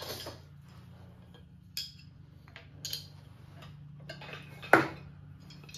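Old metal hand tools, screwdrivers among them, clinking and clicking against one another as they are handled and set down on a bench: several separate light clinks, the loudest a little before the end, over a faint steady hum.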